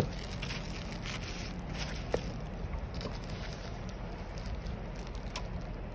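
Plastic bubble wrap and packaging crinkling and rustling as a phone screen assembly is unwrapped, mostly in the first half, with a sharp tap at the start and another about two seconds in. A steady low hum lies underneath.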